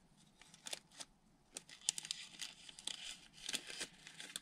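Glossy wrapper of a 1992 Impel X-Men trading card pack being torn and peeled open by hand: faint, irregular crinkling and crackling.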